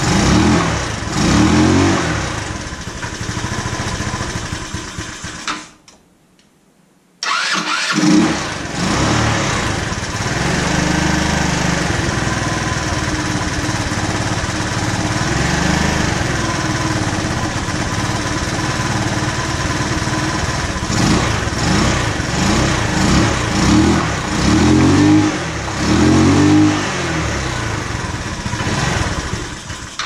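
GY6 150cc single-cylinder four-stroke scooter engine being started and run, revs swelling and falling under repeated throttle blips. It cuts out about six seconds in and is running again a second or so later. It runs rough and will not settle to an idle despite freshly adjusted valves.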